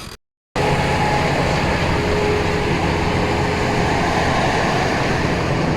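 Engine and road noise inside the cab of a GAZelle Next truck under way: a loud, steady drone that starts abruptly after a brief silence near the start.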